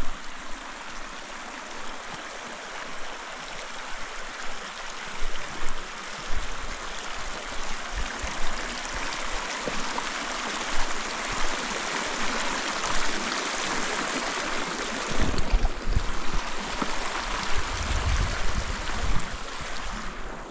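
Steady rush of flowing water, with wind buffeting the microphone in irregular low gusts from about six seconds in, heaviest near the end.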